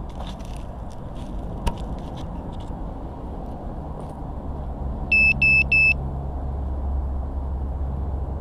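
Three short, identical high beeps in quick succession from an FPV quadcopter's electronics, about five seconds in, over a steady low rumble on the camera microphone. Before them come a few light clicks and one sharp knock as the quad is set down.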